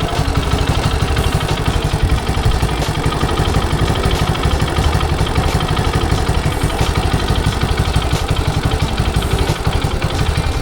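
Honda Super Cub's single-cylinder four-stroke engine running at a steady idle, an even rapid beat of firing pulses.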